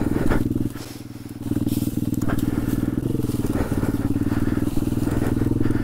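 Trailmaster TM29 pit bike's small four-stroke single-cylinder engine running under load in first gear. The throttle comes off about a second in, and the engine picks back up half a second later. A few brief sharp cracks sound over the engine.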